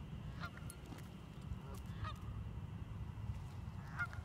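Geese honking from a flock, a few scattered short calls with the loudest near the end, over a steady low rumble.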